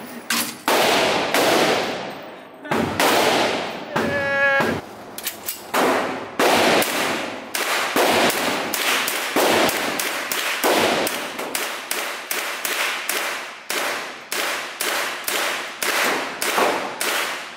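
AR-15-style rifle fired semi-automatically in rapid strings, each shot a sharp crack with an echoing tail off the concrete range walls. The shots come unevenly at first, then settle into a steady run of about two a second.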